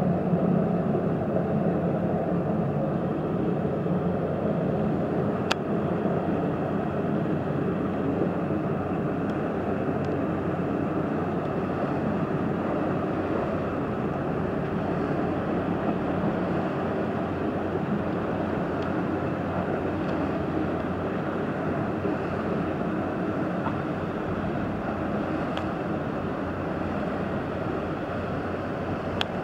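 Steady low drone of passing boats' diesel engines, with a wash of wind and water noise over it.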